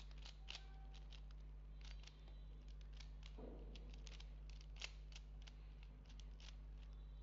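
A Rubik's cube being scrambled: its plastic layers are twisted in quick succession, making a run of irregular small clicks and clacks over a faint steady electrical hum.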